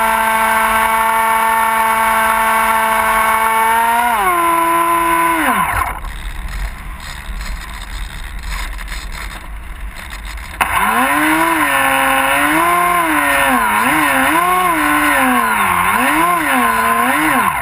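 Electric motor and propeller of an AXN foam RC plane, heard from a camera on board: a steady whine that winds down about four seconds in, a few seconds of rushing air while the plane glides with the motor off, then the motor cuts back in suddenly, its pitch rising and falling as the throttle is worked.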